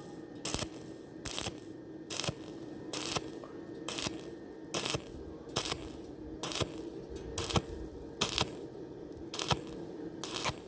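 Stick-welding arc struck in short bursts, about a dozen sizzling crackles a little more than a second apart, as the rod is stitched onto thin square tube, over a steady hum.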